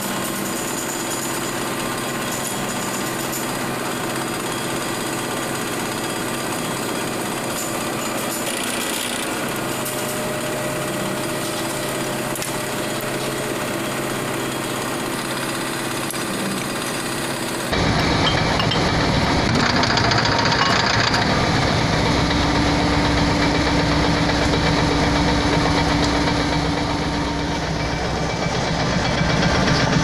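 A machine engine running steadily, with a few constant tones in its noise. About 18 s in it cuts abruptly to a louder, deeper rumble.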